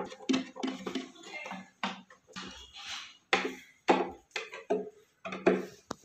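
Long screwdriver working screws through a metal plate into a wooden drawer front: irregular metallic clicks and scrapes of the tip in the screw heads, with a few louder knocks in the second half.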